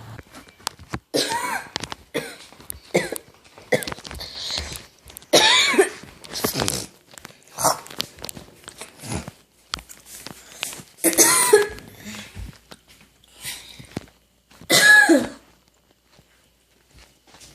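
A person coughing over and over, a separate cough about once a second, some dry and some with the voice sounding through them. There is a short lull near the end.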